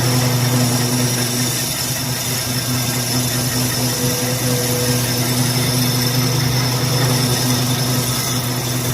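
Lathe's electric motor running steadily with a constant low hum.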